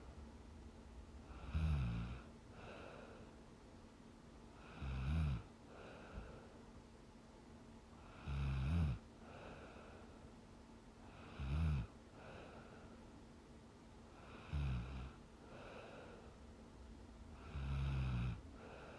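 A young woman snoring in her sleep: six snores about three seconds apart, each followed by a softer breath out.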